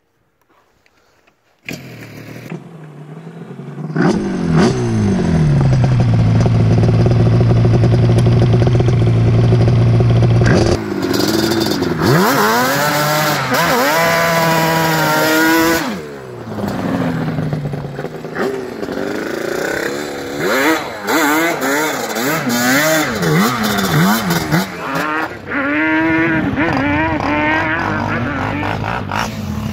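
Yamaha Banshee 350's two-stroke twin engine revving hard: it cuts in after a short silence, holds steady high revs for several seconds, then is revved up and down over and over as the quad slides in the dirt.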